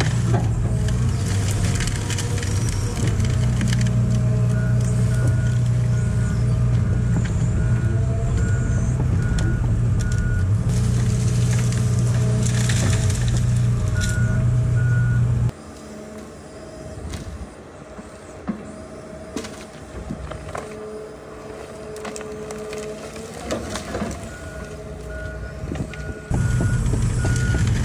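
Hitachi 245 excavator's diesel engine running under working load, with its travel alarm beeping repeatedly at a steady pace and scattered cracks and snaps of wood as the Scorpion S1600 grab pulls out and handles trees. The engine sound drops to a much quieter level for about ten seconds past the middle, then comes back loud near the end.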